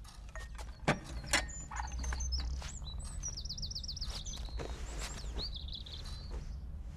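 Small birds chirping and trilling, a series of high chirps with a fast warbled trill in the middle, over a low steady room hum. Two sharp knocks sound about a second in.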